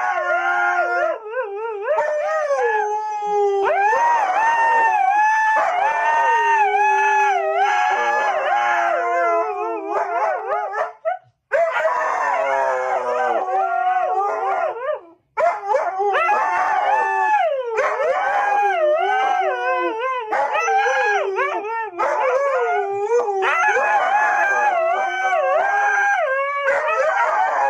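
Dog howling and whining in long, wavering calls that rise and fall in pitch, almost without pause, with two brief breaks about 11 and 15 seconds in.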